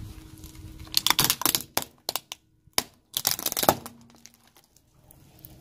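Small plastic toy trucks cracking and crunching under a car tyre. The plastic snaps in several separate bursts, loudest about a second in and again around three seconds in.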